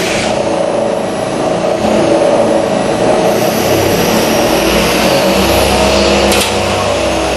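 CNC lathe running: a steady machine noise with several humming tones. It grows louder and heavier about two seconds in, then drops back about six and a half seconds in.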